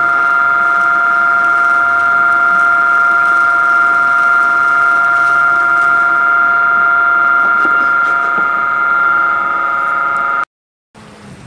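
The electric blower of a 12-volt portable seed winnower running, a steady high whine. It cuts off abruptly near the end.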